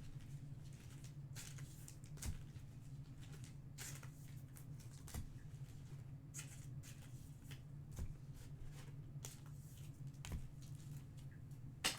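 Trading cards being handled and sorted by hand: soft swishes and light taps as cards slide and are set down, with a sharper tap near the end, over a steady low hum.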